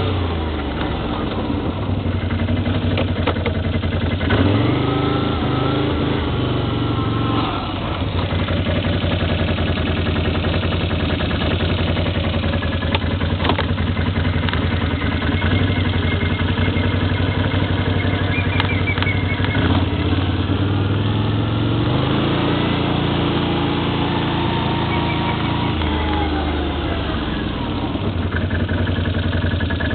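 ATV engine running under way, its pitch climbing twice as it revs up and falling back as it eases off.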